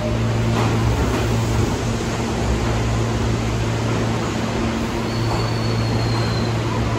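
Steady noise of a New York City subway train: a low hum over an even rush, with a faint thin squeal for about a second, about five seconds in.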